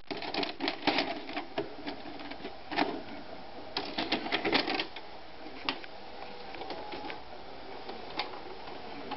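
VHS cassette pushed into a Sharp multi-system VCR's front-loading slot, with the deck's loading mechanism taking it in: a quick run of plastic clicks and clatters, a second dense cluster about four seconds in, then a few single clicks.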